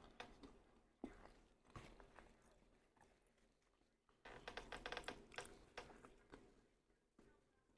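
Faint chewing of food with soft, wet mouth clicks: a few isolated clicks, then a quick run of them from about four to six seconds in.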